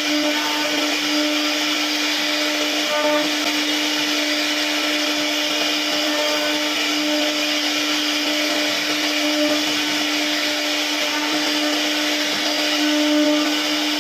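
CNC router spindle running at a steady high pitch with a broad hiss as it machines wood.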